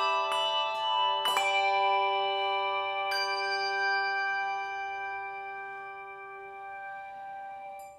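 A handbell choir ringing its final chords: a few struck chords in the first seconds, then the last chord left to ring and slowly fade, stopped suddenly near the end as the bells are damped.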